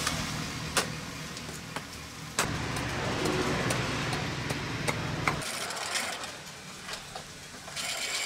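Hand woodworking with a machete and knife: a few sharp blade strikes on wood over a steady low mechanical hum, then near the end the whirr of a spinning grinding wheel sanding wood.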